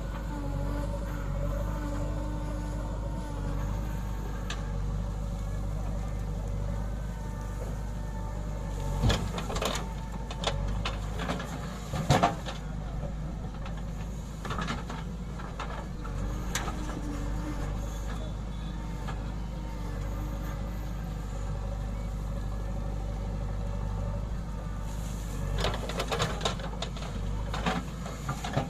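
JCB 3DX backhoe loader's diesel engine running steadily under load, with several sharp clanks and knocks from the digging and loading, the loudest about twelve seconds in and a cluster near the end.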